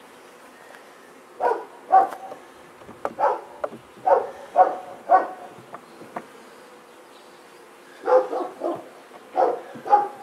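A dog barking in short clusters of two or three barks, over a steady hum of honeybees buzzing around the hive.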